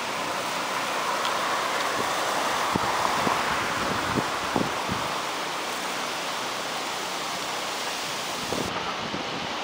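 Steady rushing of fast-flowing floodwater, a continuous hiss that swells a little in the first few seconds and then evens out.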